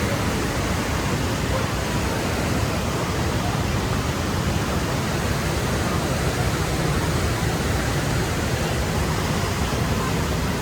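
Steady rush of a fast mountain river or stream, an even hiss with no breaks.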